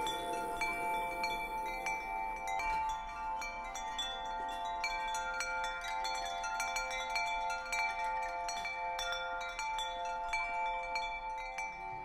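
Wind chimes tinkling: many small metal chimes struck at random, their ringing notes overlapping and lingering as several steady tones.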